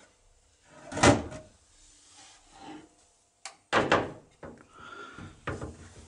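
A door being handled and shut, with separate clunks and knocks: a heavy thump about a second in, then a sharp click, another heavy knock and a few lighter taps in the second half.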